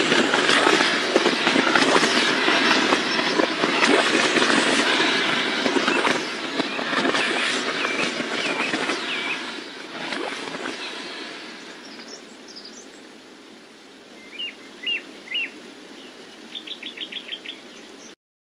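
Truck engine running and fading away as it drives off. Birds chirp over it: a few single chirps, then a quick run of them near the end.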